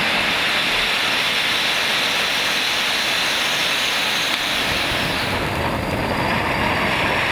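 Rows of pyrotechnic spark fountains hissing steadily, the hiss growing a little duller about five seconds in.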